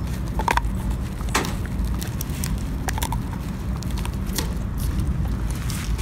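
A dog gnawing on a dried veal shin bone: scattered sharp crunches and clicks of teeth on bone, over a steady low rumble.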